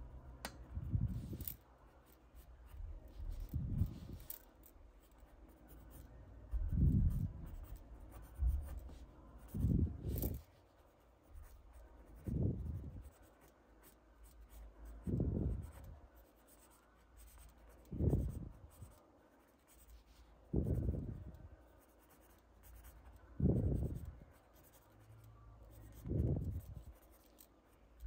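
Graphite pencil sketching on paper: light scratching strokes, with soft low swells coming about every three seconds.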